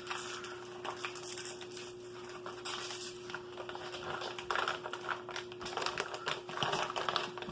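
Plastic MRE wrappers and empty packets crinkling and rustling as they are folded and stuffed together into one bag, in irregular bursts of small crackles.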